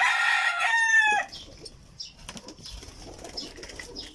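Rooster crowing once, a loud call of about a second and a half that drops in pitch at the end. Faint small clicks follow.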